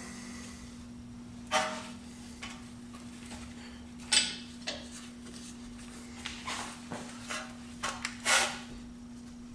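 Hand tools working on a car's rear brake caliper: a wrench and grips clinking and clanking against the caliper slide bolt and bracket as the bolts are loosened. There are irregular sharp metallic clinks, with louder knocks about one and a half and four seconds in, over a steady low hum.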